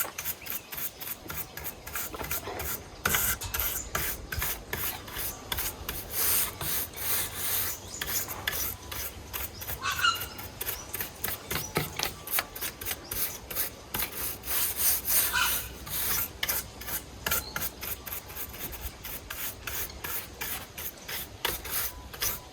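Rough rasping strokes against wood, several a second, repeated without a break.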